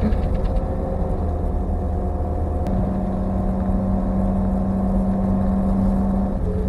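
Ford Mustang's engine running under load. It settles into a steady, higher-pitched drone about three seconds in, then changes pitch near the end.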